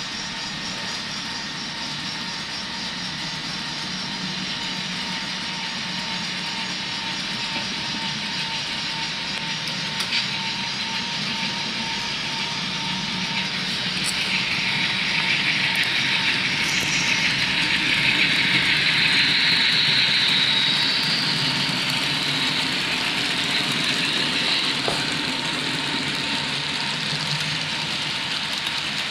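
Model freight train running along layout track, its wheels and motor giving a steady rolling rumble. It grows louder and brighter for several seconds in the middle as the train passes close.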